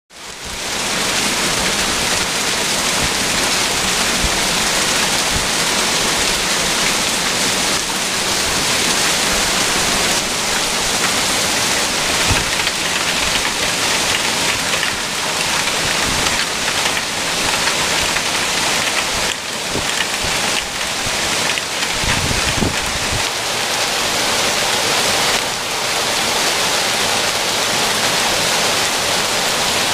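Heavy rain mixed with marble-size hail pelting the ground and a wooden deck. It makes a loud, dense, unbroken hiss and patter that holds steady throughout.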